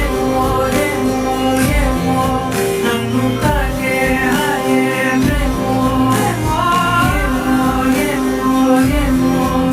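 Telugu film song music with instruments and a melodic line, possibly wordless vocals, over a regular beat.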